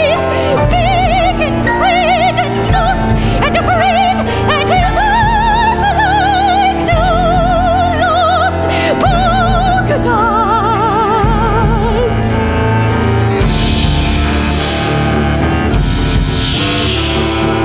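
Soprano singing an operatic line with wide vibrato over a chamber ensemble. About twelve seconds in the voice stops and the ensemble swells into a louder, noisier passage.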